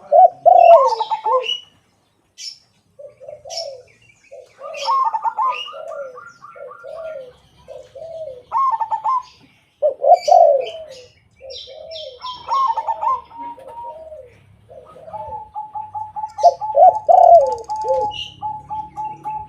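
Two caged doves, a silver crossing zebra dove (perkutut) and a white derkuku (tekukur), cooing back and forth. Lower cooing phrases are interleaved with runs of quick, evenly repeated higher coo notes, one long run near the end. Sharp high chirps from small birds come in between.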